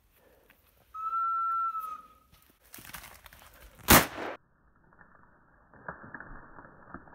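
A single steady whistle note about a second in, then rustling in the brush and one loud shotgun shot about four seconds in, fired at a woodcock flushing from cover, with a short echo.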